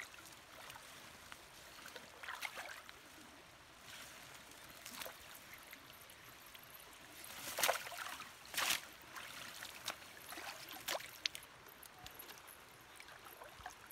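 River water sloshing and splashing around someone wading in the shallows and pulling leafy branches and a bamboo fish trap out of the water, with a few sharper splashes and drips, the loudest a little past the middle.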